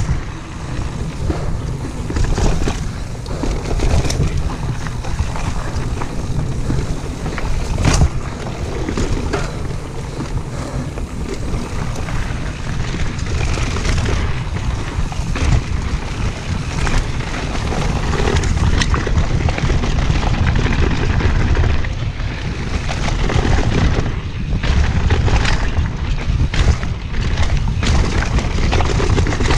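Mountain bike riding fast down a dirt singletrack: a heavy rumble of wind and ride vibration on a chest-mounted camera, broken by frequent knocks and clatter as the bike hits bumps.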